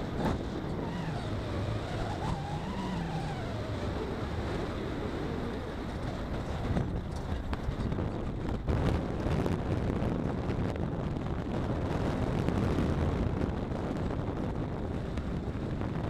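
A car driving along a country road, heard through a camera mounted on the car: steady road and wind noise. From about halfway in, gusts buffet the microphone and there are a few short knocks.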